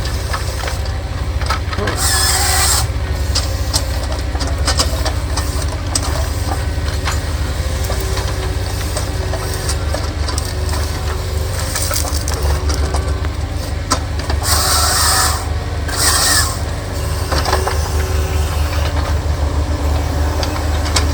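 Heavy logging machinery's diesel engine running steadily with a low rumble, with short bursts of hiss twice, about two seconds in and again near three-quarters of the way through.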